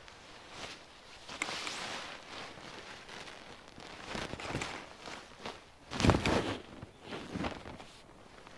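Irregular crunching and rustling of dry twigs and pine-forest litter, a handful of separate crunches with the loudest about six seconds in.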